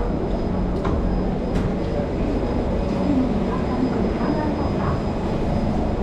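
Steady hum and rumble of an MRT train standing at an underground platform with its doors open, with a faint steady high tone, a few light clicks early, and faint passenger voices from about halfway through.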